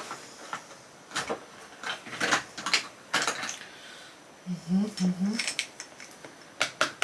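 Small cosmetic products and their packaging being handled on a table: a series of sharp clicks and knocks, with a short two-note hummed voice about halfway through.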